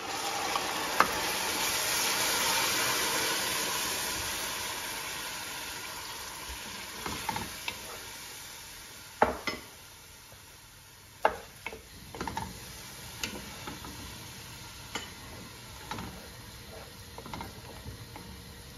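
Ground green paste hitting hot oil in a cooking pot: a loud sizzle that swells over the first few seconds and slowly dies away, as the masala starts to fry. A wooden spatula then stirs and scrapes through it, with scattered sharp knocks against the pot.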